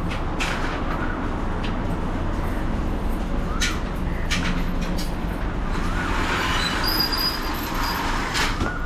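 Steady low vehicle engine rumble, with sharp knocks of plastic bread trays being handled and stacked in a lorry's cargo box.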